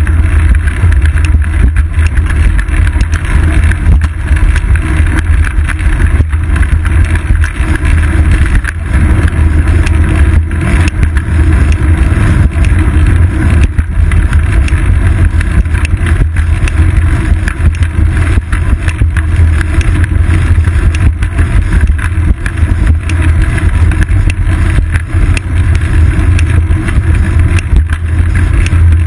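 Loud, steady low rumble of wind and riding vibration picked up by a bicycle's seat-post-mounted GoPro Hero 2 as the bike rolls along a paved path, with motor traffic running in the lanes alongside.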